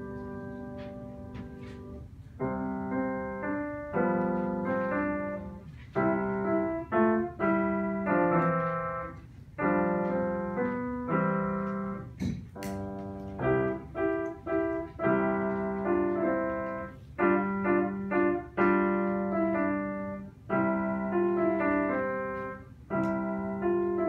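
Bösendorfer grand piano played solo: phrases of chords struck sharply and left to ring and die away, after a held chord that fades in the first two seconds.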